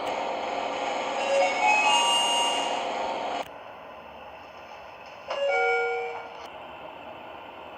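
Sigma elevator chimes: a multi-tone chime about a second and a half in over a steady background noise, then an abrupt cut to a quieter recording and a second chime about five seconds in that rings for about a second.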